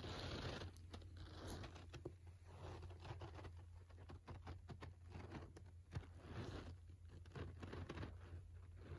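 Faint rustling and scratching of a futon duvet as a cat burrows underneath it, with many small crinkles and clicks, louder at the start, over a low steady hum.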